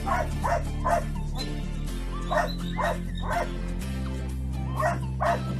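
Belgian Malinois puppy giving short yapping barks in quick runs of three or four, over background music with steady chords.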